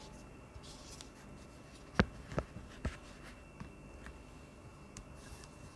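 A few sharp clicks and light taps from handling a wireless keyboard. The three loudest clicks come close together about two seconds in.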